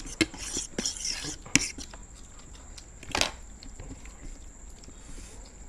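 Eating at a table: scattered clicks and clinks of dishes and cutlery, with a louder clatter about three seconds in, then quieter.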